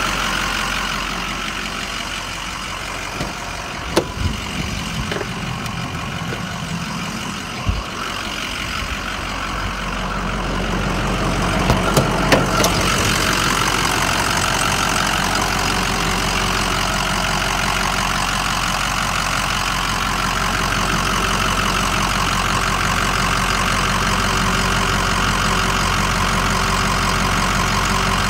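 A 6.0 Power Stroke V8 diesel idling steadily. It gets louder about halfway through, and there are a few light knocks in the first half.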